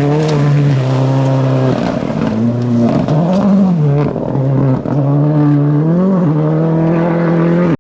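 Rally car engine at high revs, its pitch climbing and dropping several times with gear changes and lifts of the throttle; the sound cuts off abruptly at the end.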